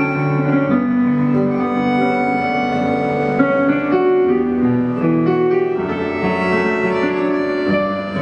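Slow ballad's instrumental passage on piano with bowed strings, held notes and chords moving every second or so.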